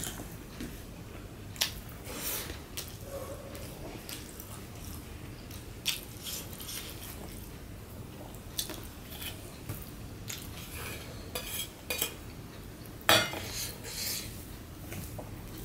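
Fingers mixing rice and mashed bhorta on a steel plate: scattered sharp clicks and short scrapes of hand and food against the metal, the loudest about 13 seconds in.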